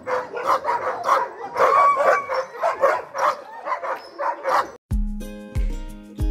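A yard of sled dogs barking and yipping over one another in rapid, overlapping barks. About three-quarters through it cuts off abruptly and music with steady held notes and a low, regular beat takes over.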